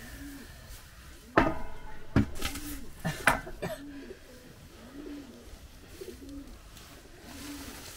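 A pigeon cooing over and over in a low, even rhythm, a little more than one coo a second. A few sharp knocks stand out between about one and a half and four seconds in.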